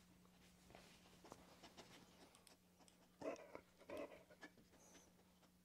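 A dog gives two short barks, about three seconds in and again a second later, demanding a treat held up out of reach.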